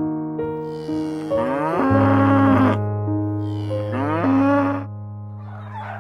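A cow mooing twice, each long call rising in pitch and then holding, over background music with sustained chords.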